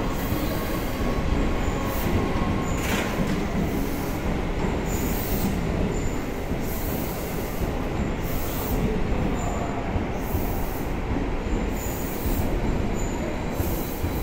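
Electric commuter train running past along a station platform: a steady rumble of steel wheels on the rails with a faint steady whine. The hiss swells and fades about once a second, and there is one short clack about three seconds in.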